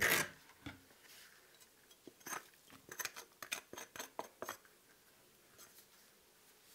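A metal spoon scraping butternut squash flesh out of its skin: one louder scrape right at the start, then a quick run of about ten short scrapes and light clicks in the middle, fading out after that.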